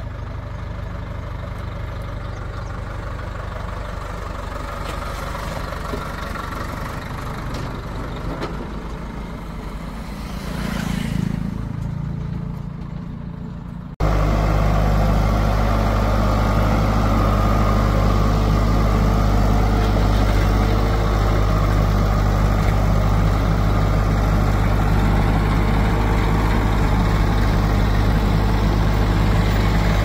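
JCB 3DX backhoe loader's four-cylinder diesel engine running steadily as it drives, with a brief swell about eleven seconds in. About halfway through it cuts to a much louder, steady diesel engine idling close by, from the backhoe and a Massey Ferguson 1035 tractor.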